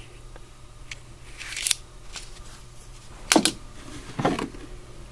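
Tools being handled and shifted by hand in an old wooden toolbox: a short scrape about a second and a half in, then a few sharp clinks and knocks of metal tools against each other and the box.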